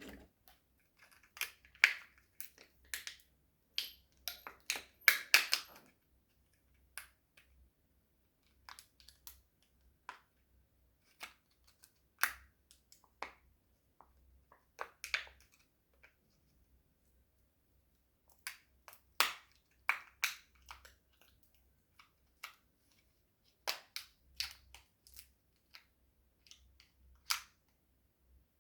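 Someone eating sweets: irregular sharp crunches and clicks, coming in clusters with short gaps between them.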